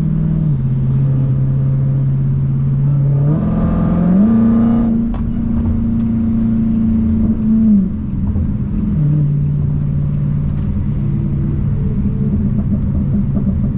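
Dodge Challenger Hellcat's supercharged V8, heard from inside the cabin while cruising, a steady drone. About three seconds in it rises in pitch as the throttle opens, with a brief fuller burst, holds higher for a few seconds, then drops back about eight to nine seconds in.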